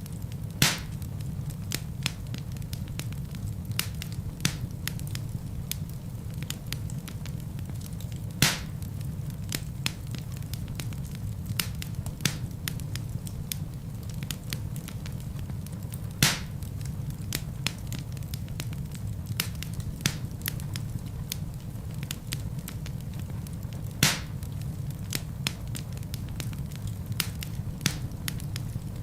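Wood fire burning in a fireplace: a steady low rumble of flames with constant small crackles and four louder pops of burning logs, spaced about eight seconds apart.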